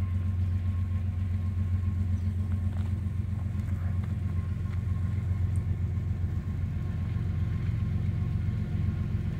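Diesel locomotive running as it approaches slowly at the head of an autorack train: a steady low engine drone.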